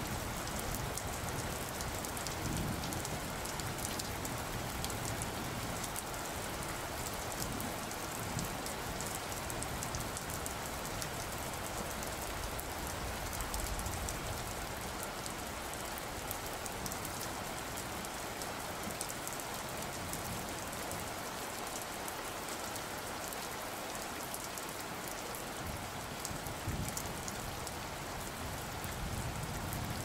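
Steady rain falling, an even hiss of drops that holds at one level throughout.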